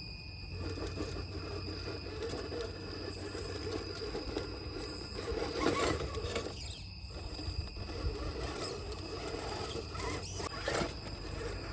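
Electric motor and geared drivetrain of a 1:10 scale RC crawler whining and squealing as it strains to climb a steep stone step. The sound swells and fades with the throttle, and the tyres or chassis knock against the stone twice, about six seconds in and near the end.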